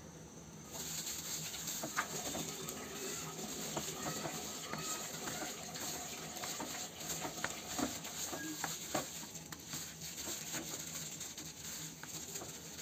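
A hand in a thin plastic glove mixing whole koi fish into a wet spice paste with mustard oil in a bowl: squishing and crinkling with many small clicks, starting about a second in.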